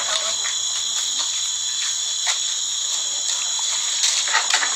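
A steady high-pitched hiss with no clear events.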